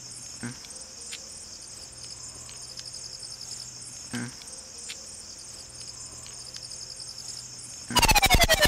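Field crickets chirping steadily, with two soft knocks about half a second and four seconds in. Music with fast repeated notes starts abruptly near the end.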